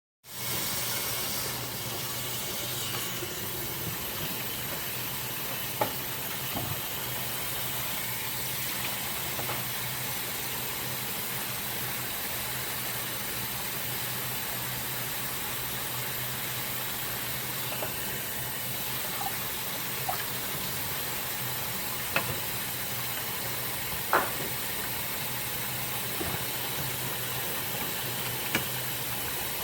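Tap water running steadily into a sink while dishes are washed, with a few sharp clinks of dishware.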